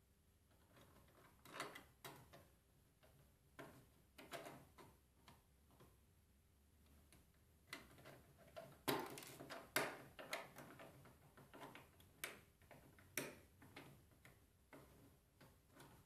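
Small 3D-printed plastic gears and frame parts clicking and rattling as they are handled and pressed together by hand: scattered light clicks at irregular intervals, busiest about nine to ten seconds in.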